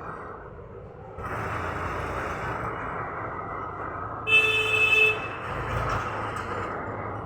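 Road traffic noise from passing vehicles that swells about a second in, with a vehicle horn honking for under a second about four seconds in, the loudest sound.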